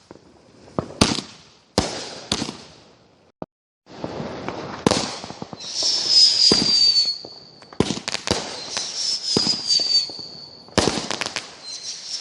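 Consumer fireworks going off: a string of sharp bangs and crackling, with three high whistles that each fall slightly in pitch while the bangs continue.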